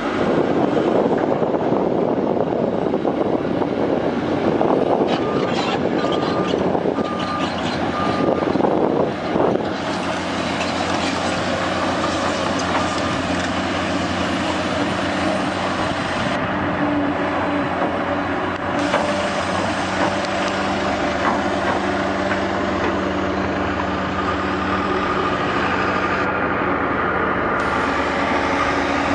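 Engines of heavy construction machinery or trucks running steadily through a string of short clips, with a short series of beeps a few seconds in.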